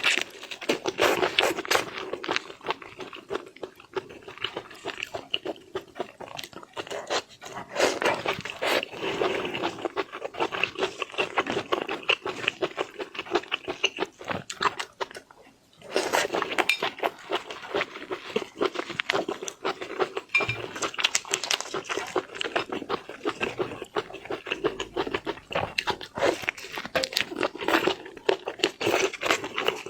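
Close-up eating sounds of seafood: wet chewing, lip smacking and crunchy bites in a dense, irregular run of clicks, with a short pause about halfway.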